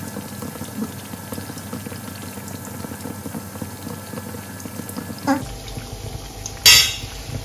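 Chana dal pakoras deep-frying in medium-hot oil: a steady bubbling sizzle with fine crackling. Near the end there is one short, louder burst of noise.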